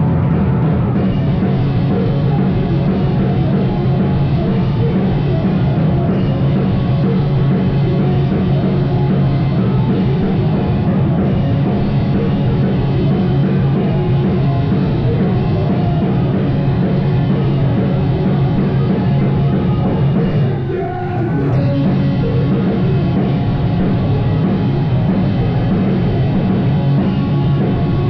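A rock band playing live, loud and dense, with a short drop in the sound about three quarters of the way through.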